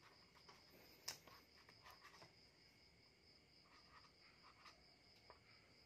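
Near silence: faint room tone with a steady high-pitched whine, and a few soft ticks and scratches from a felt-tip marker writing on a paper label.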